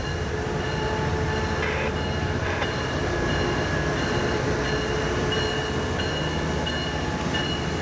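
Tri-Rail diesel locomotive and its bilevel coaches rolling slowly into a station, the engine giving a steady low rumble, with a thin high-pitched tone that comes and goes.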